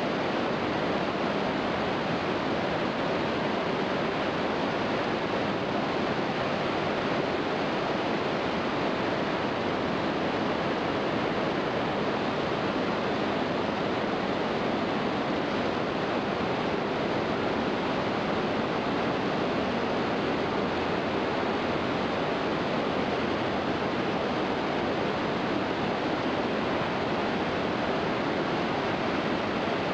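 Steady rushing noise of falling and churning water from Iguazu Falls and the river below them, even and unbroken throughout.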